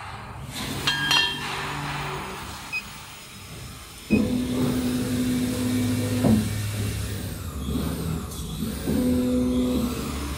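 Laser cutter's gantry stepper motors whining as the head traces a cut in MDF: pitched tones that switch on and off abruptly and change pitch as the head changes speed and direction, with curving high glides as it follows curves, over a steady hiss.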